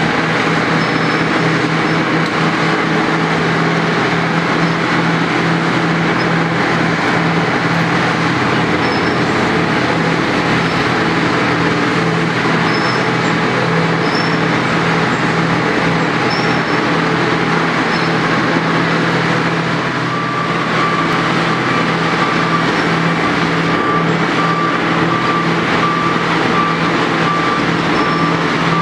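Wirtgen W2200 cold milling machine running as it mills an asphalt road surface: a loud, steady mechanical din over a constant low engine hum. About two-thirds of the way through, a reversing alarm starts beeping steadily.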